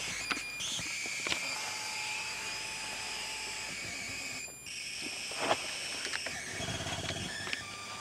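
Electrical interference through the car stereo speakers on the AUX input: a high-pitched electronic whine and screech of several steady tones, with a few clicks, a brief dropout about halfway and a low buzz near the end. It comes from a cheap MP3 player powered by a cigarette-lighter USB adapter, which the owner puts down to the player and/or the adapter.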